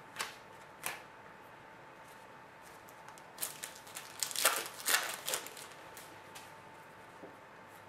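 Trading cards and their pack being handled: two soft clicks, then a cluster of crinkly rustles in the middle, over a faint steady hum.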